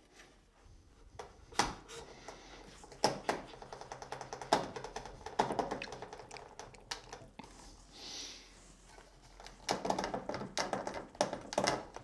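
Light wooden taps and knocks of a through tenon being pressed and worked into its mortise by hand, with a brief rubbing hiss about eight seconds in.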